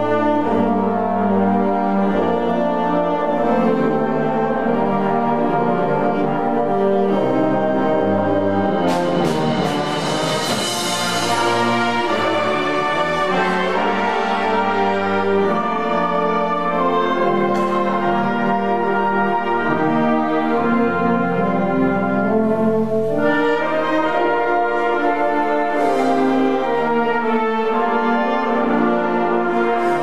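Concert band playing, with brass to the fore and woodwinds in the texture. About nine seconds in, a bright high shimmer swells up and fades out by about twelve seconds, and a few lighter high strikes follow later.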